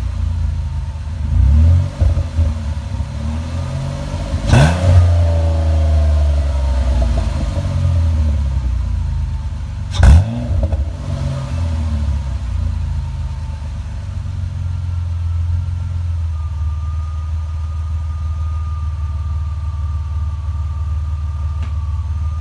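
2002 Ford Escape's 3.0 V6 running through a custom 2.5-inch catback exhaust: idling, with three quick throttle blips in the first half, each rising and falling back in pitch, then settling into a steady idle. A faint high whine joins in the latter part.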